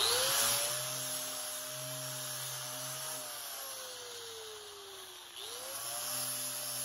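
DeWalt angle grinder with an abrasive disc starting up and grinding the end grain of a wooden log beam. Its whine settles to a steady pitch, sags slowly under the work, then spins back up about five seconds in.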